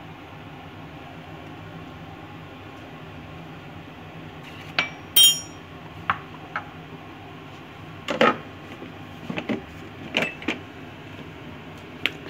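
Clinks and knocks of metal and plastic against a Thermomix's stainless-steel mixing bowl, from about five seconds in, the loudest a bright ringing metallic clink, over a steady low hum.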